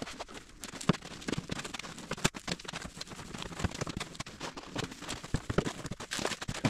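Foam packing insert rubbing and scraping against a 3D printer's plastic enclosure as it is worked out of a tight fit, with irregular knocks and bumps from the handling.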